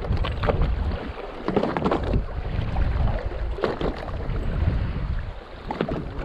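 Wind buffeting the microphone over choppy sea around a small open fishing boat, a steady low rumble with scattered clicks and knocks.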